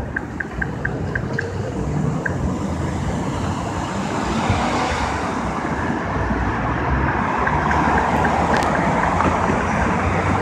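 Street traffic, cars passing on the road, swelling between about four and nine seconds in. A run of quick, even high ticks sounds during the first two seconds and again briefly around eight seconds.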